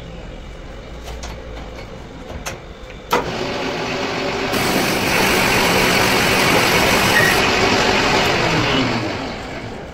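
Metal lathe turning a large steel hydraulic jack cylinder: a sharp click about three seconds in, then the spinning chuck and the tool bit cutting the steel make a dense, steady machining noise that grows louder and fades near the end.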